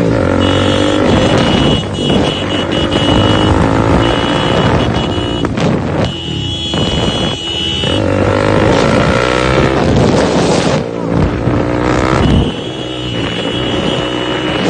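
Motorcycle engine running at road speed, its pitch rising and falling as the rider speeds up and eases off, with wind buffeting the microphone.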